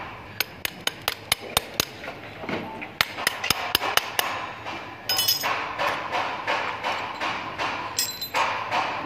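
Hammer tapping out the front axle of a scooter's disc-brake wheel: two quick runs of sharp metal-on-metal taps, about seven each, a little over a second apart. After that comes a steadier, busier noise with a couple of brief high metallic rings.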